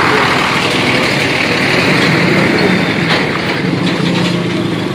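Heavy diesel tractor-trailer truck passing close by, its engine running steadily under tyre and road noise, growing a little fainter near the end.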